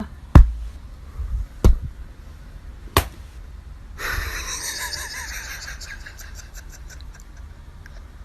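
Three sharp knocks or thumps, a little over a second apart, over a low room rumble, followed by a steady hiss with faint clicks.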